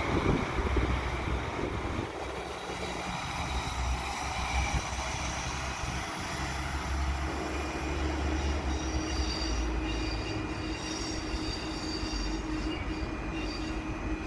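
Regional diesel multiple unit train running on the station tracks, a steady rumble of wheels and engine. Thin high tones of wheel squeal come in after about nine seconds.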